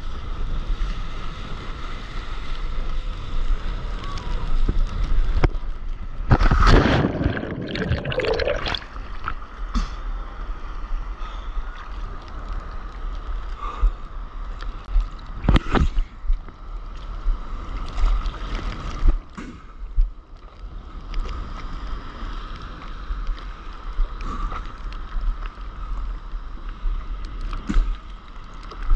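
Water sloshing and splashing around a stand-up paddleboard and its paddle, with wind buffeting the action camera's microphone. A loud rush of water comes about a quarter of the way in, and a few sharp splashes follow later.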